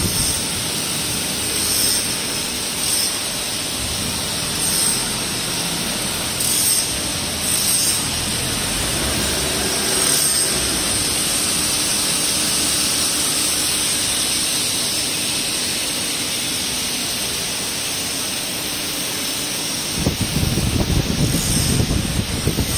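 Steady factory-floor machinery noise: a constant hum and hiss with a thin high steady whine above it, and a louder low rumble for the last few seconds.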